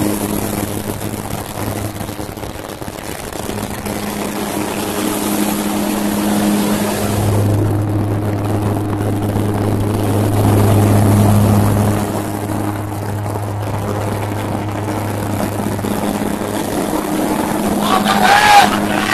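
Propeller aircraft engines droning steadily with a low hum, growing somewhat louder in the middle. Near the end a brief wavering higher-pitched sound rises over the drone.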